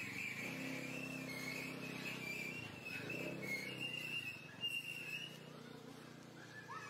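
A motor vehicle's engine running steadily, fading after about five seconds, with a string of high, wavering chirps over it.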